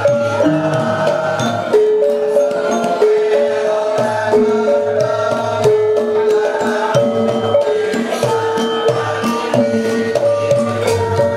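Javanese gamelan ensemble playing, with rows of bronze kettle gongs (bonang) struck with padded mallets in a steady run of ringing notes over longer held bronze tones.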